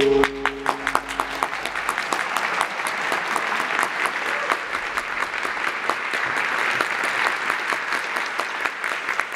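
Audience applauding with dense, steady clapping. The dance music stops just as the clapping begins, and its last low tones die away within the first second or two.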